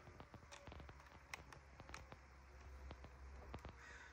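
Faint scattered small plastic clicks and taps as a MacBook Pro spacebar keycap is pressed down onto the hook flanges and clips of its butterfly mechanism, over a low steady room hum.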